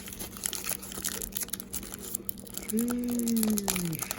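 Trading card pack wrapper crinkling and cards being handled, with light crackles and clicks. About three seconds in, a drawn-out vocal hum falls in pitch for about a second.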